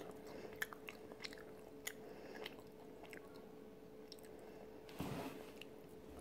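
Soft chewing of a dried pitted Deglet Noor date, with faint, scattered wet mouth clicks over a faint steady hum. A brief soft noise comes about five seconds in.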